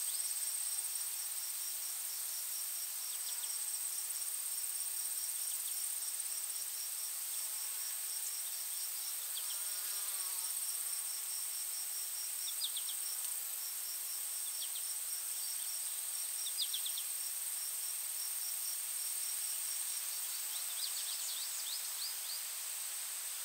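Forest ambience dominated by insects such as crickets: a continuous high-pitched trill with a regular pulsed chirping beneath it. A few short clusters of quick high chirps come and go throughout.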